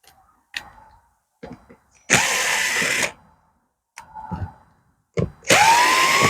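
A power drill or screwdriver driving panel screws in two spells of about a second each, its motor whine rising in pitch during the second. Short knocks and clicks of handling come between them.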